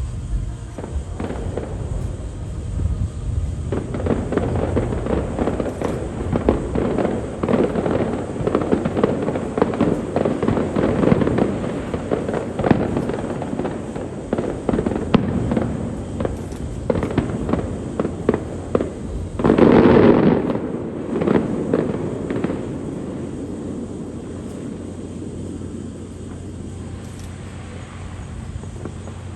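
Fireworks display heard through a phone microphone: dense crackling and popping of bursting shells that builds up, then one loudest blast about two-thirds of the way through, then the crackle dies away.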